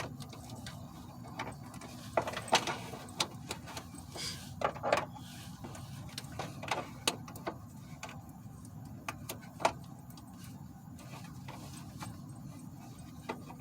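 Irregular clicks, taps and small plastic rattles of hands twisting a turn-signal bulb socket out of its housing and pulling the 1157 bulb, over a low steady hum.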